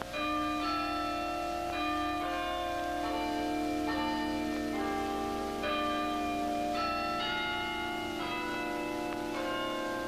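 Bells ringing a sequence of notes, a new note struck about every half second to second and each ringing on under the next.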